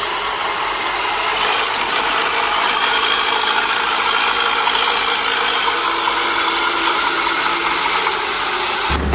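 Diesel engine of heavy earthmoving machinery running steadily, with mechanical noise from the working machine. The sound changes abruptly near the end.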